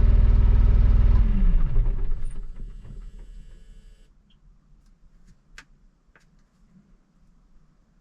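Fendt Vario tractor's diesel engine running, then cut by the remote-control system's automatic shutdown about a second in: it winds down in falling pitch and dies away within a few seconds. A couple of faint clicks follow.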